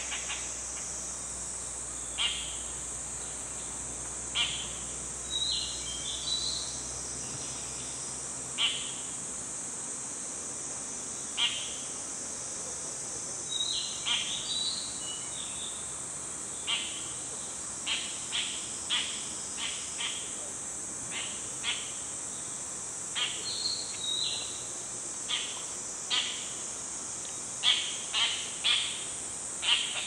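Short, harsh call notes from an Oriental dollarbird, repeated at irregular intervals and coming faster near the end. A few brief whistled phrases are mixed in, over a steady high-pitched drone of insects.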